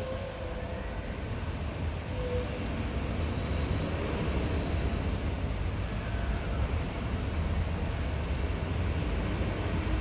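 Steady low rumbling background noise with a hiss above it, unbroken throughout.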